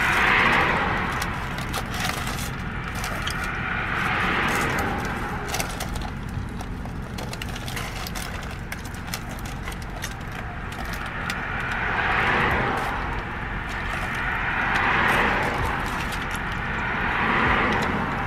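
A person chewing a banh mi with small crackles from the crusty baguette, over steady traffic noise that swells and fades several times as vehicles pass.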